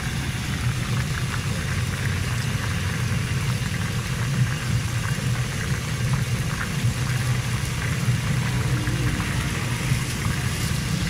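Fish frying in deep oil in a large karahi over a big open burner flame: a steady low rumble of the fire with the hot oil sizzling above it, and a few faint scrapes of the ladle.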